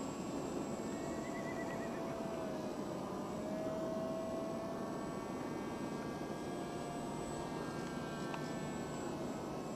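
Radio-controlled Pilatus Porter model floatplane flying overhead: the steady drone of its motor and propeller, with a faint whine that dips in pitch and then holds steady.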